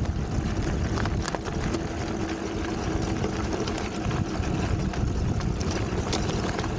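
Engwe Engine Pro electric fat bike riding over gravel: its 4-inch-wide fat tires roll with a steady rumble and crunch over a faint steady hum, with a few sharp ticks of stones and rattles.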